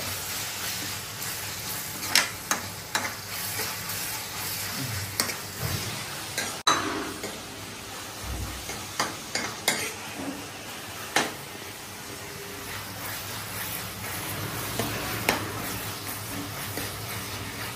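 Onions and tomatoes sizzling steadily in oil in a black two-handled kadai. A metal ladle stirs them, scraping and clinking against the pan with a dozen or so sharp knocks.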